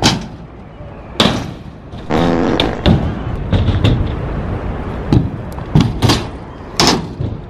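Stunt scooter wheels rolling on skatepark ramps and concrete, broken by several sharp clacks and thumps as the scooter lands and strikes the ramps.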